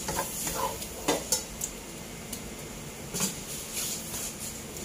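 Wooden spatula stirring and scraping thick blended rendang spice paste frying in oil in a nonstick wok, with a steady sizzle and scattered knocks of the spatula against the pan, most of them in the first half. The paste is being fried until its oil separates.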